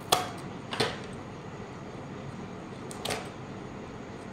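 Small scissors snipping through the seal sticker on a cardboard product box: two sharp snips just after the start and a third about three seconds in.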